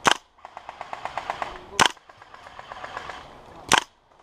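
Three loud single shots from a gas blowback airsoft gun close by, spaced about two seconds apart. Between them comes fainter rapid automatic airsoft fire, rattling at about ten shots a second.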